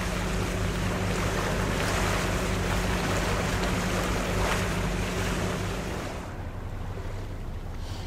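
Wind on the microphone and waves washing around a sailboat at sea, with a steady low hum under it that stops about six seconds in.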